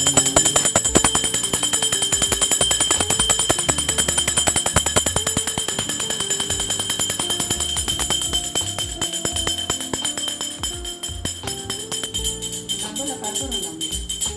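Hand-held brass puja bell rung rapidly and continuously for the aarti, its ringing tone held steady, over music with a stepping melody. The ringing grows a little fainter in the second half.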